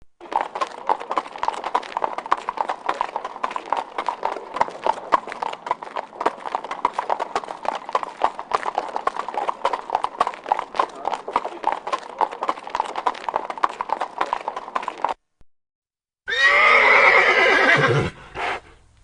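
Horse hooves clip-clopping in a quick, steady rhythm for about fifteen seconds, then stopping abruptly. After a second's pause a horse neighs loudly, a whinny that falls in pitch, with a short second call just after.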